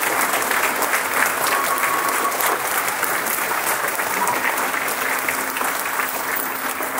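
Audience applauding: many hands clapping steadily together.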